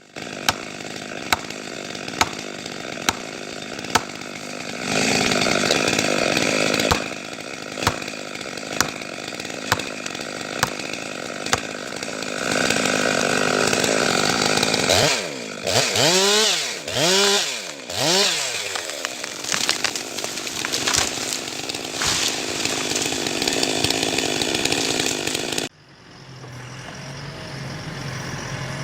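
Chainsaw running and revving up and down in repeated bursts, with sharp knocks about once a second in the first few seconds. Near the end it cuts off abruptly and a quieter steady engine hum takes over.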